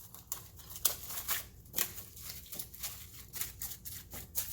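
Plastic cling wrap crackling and crinkling in quick irregular bursts as it is handled and laid over a bowl.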